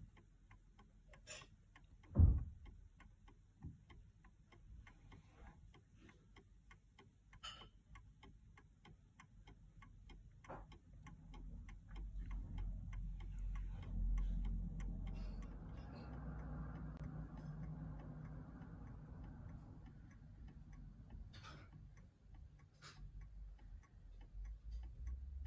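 Haller mantel clock movement ticking steadily, the escapement beating evenly with its pendulum swinging. There is a single loud thump about two seconds in, and a low rumble underneath from about the middle onward.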